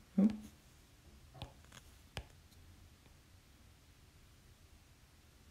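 Two sharp taps of a stylus on a tablet's glass screen, with a few fainter ticks around them, while handwriting is selected and copied in a note app. A short hum of voice comes just before the taps.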